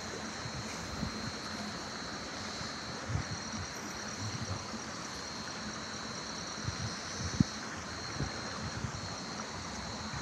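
Steady rushing outdoor background noise, like a flowing stream, with a constant thin high whine over it. A few soft low knocks, the sharpest about seven seconds in.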